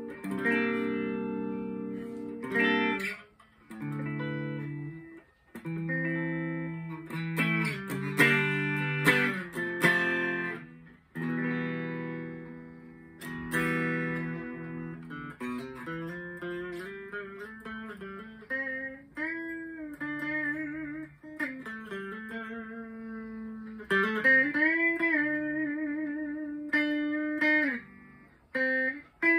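Slick SL50 Telecaster-style electric guitar played through an amp on its clean channel. Chords are strummed and picked for about the first fifteen seconds, then it turns to single-note lines with string bends and vibrato.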